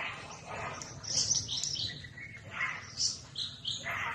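Short, high-pitched chirping calls, repeated irregularly several times, over a low steady background hum.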